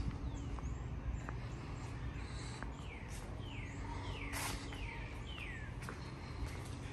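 A bird calling: a series of about five clear, down-slurred whistles, roughly two-thirds of a second apart, over a steady low background rumble.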